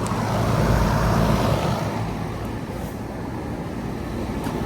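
Outdoor condenser unit of a central air conditioner running in cooling mode, its fan blowing a steady whoosh of hot discharge air.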